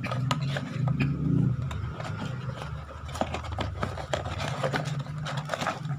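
Hands handling a cardboard box and its paper inserts: scattered scrapes, rustles and small knocks. A low rumble sits under it in the first couple of seconds.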